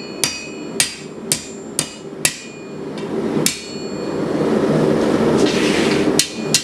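Blacksmith's hammer striking steel flat stock on an anvil, about two blows a second with a faint ring after each. The blows pause for a few seconds while a steady rushing noise swells, then two more blows come near the end.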